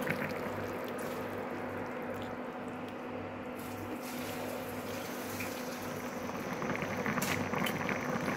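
Fish curry boiling in a metal pan on an induction cooktop: a steady bubbling and simmering. Underneath it runs a low hum that pulses about twice a second.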